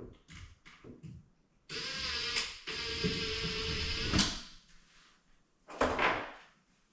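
Cordless drill/driver running in two bursts, a short one then a longer one of about one and a half seconds, driving a screw. A sharp knock follows near the end.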